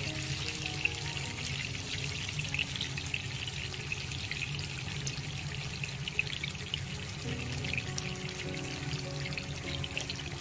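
Fish kalia gravy simmering in a frying pan, a steady fine bubbling and crackling, under background music with slow held notes.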